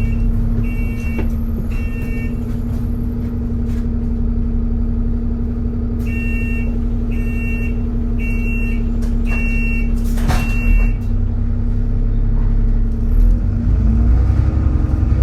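Inside an ADL Enviro400 Trident double-decker bus, a steady whine at one held pitch, the 'hoover mode' cooling fan, runs over the low running of the diesel engine. A short, high warning beep repeats about every 0.7 s, four times near the start and six times from about six seconds in, and a single thud comes about ten seconds in.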